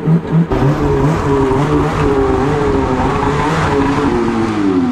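Polaris Assault Boost snowmobile's turbocharged two-stroke engine running at low revs, its pitch wavering up and down and dropping away near the end.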